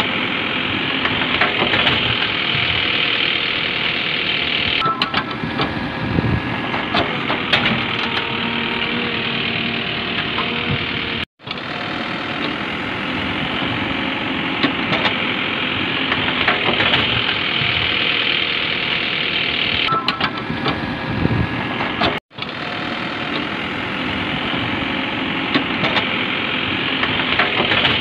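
An engine running steadily, cut off completely twice for an instant, about eleven seconds apart, where the same stretch of sound starts over.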